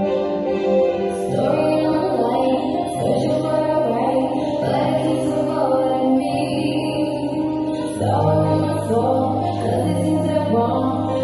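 Recorded music for a jazz dance routine, with sustained chords. A bass line comes in about a second in and moves lower about eight seconds in.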